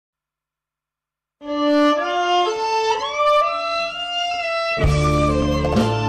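Instrumental intro of a Khmer pop song: after about a second and a half of silence a violin plays a solo melody with sliding notes, and near the end the full band comes in with bass and a beat.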